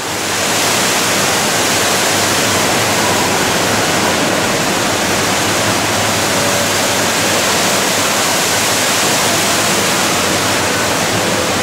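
Water pouring from the Rain Oculus, Marina Bay Sands' giant acrylic bowl, into the pool below as a loud, steady indoor waterfall.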